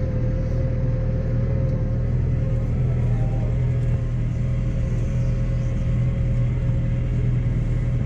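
Tractor engine running at a steady speed with a constant low hum, and a thin steady whine above it.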